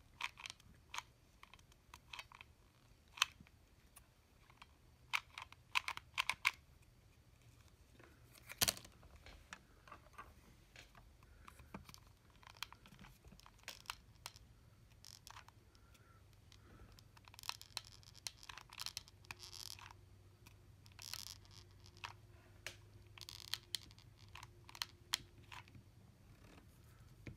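Faint handling noise of hands working fabric and small parts: scattered sharp clicks and scratching, rustling sounds at irregular intervals.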